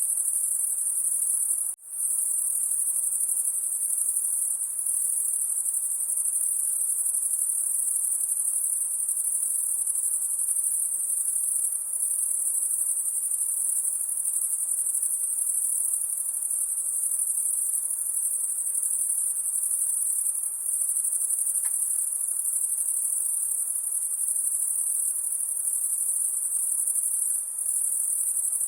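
A chorus of insects at night making a steady, high-pitched shrill drone. It cuts out for a moment about two seconds in.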